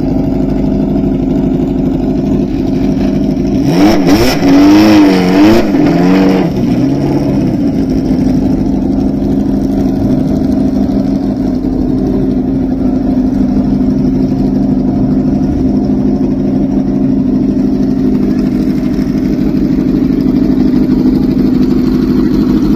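Ferrari Dino 308 GT4 NART's V8 running steadily, with a few quick throttle blips, rising and falling in pitch, about four to six seconds in, the loudest part.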